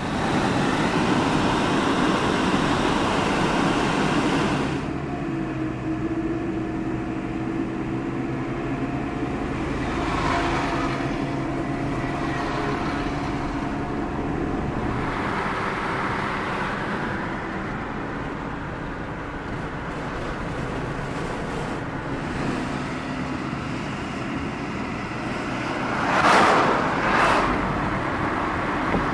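Car driving at road speed, heard from inside the cabin: steady engine and tyre noise. The sound shifts abruptly about five and fifteen seconds in, and two brief louder swells come near the end.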